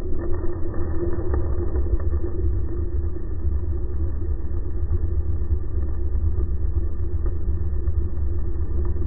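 Outboard motor running in gear, heard underwater: a steady low rumble from the engine and spinning propeller, with a steady hum above it.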